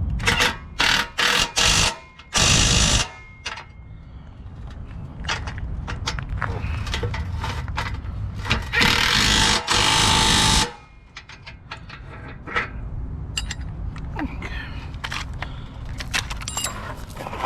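Cordless power driver running in short trigger bursts, tightening bolts into nylon lock nuts. There are several quick bursts in the first few seconds, then two longer runs about nine seconds in.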